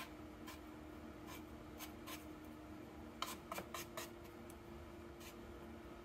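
Chopsticks scraping and pushing flour over a pork chop on a wooden plate: soft, scratchy strokes, scattered singly, with a quick run of four about three seconds in.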